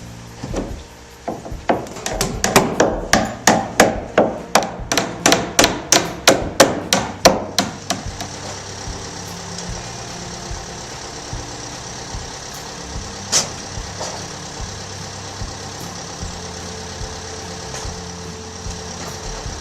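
Hammer blows nailing down roof boards: a rapid, even run of about twenty strikes, roughly three a second, lasting about six seconds. Later comes a single knock over a steady background hum.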